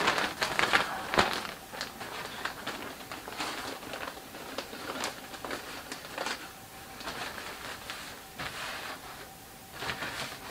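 A black fabric photo backdrop being unfolded and set up on a desk: rustling cloth with scattered clicks and knocks from handling its frame. The handling is busiest and loudest in the first couple of seconds, then sparser.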